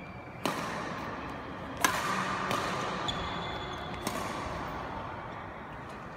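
Badminton rackets striking a shuttlecock: two sharp cracks about a second and a half apart, the second louder, each with an echo, followed by a few fainter knocks.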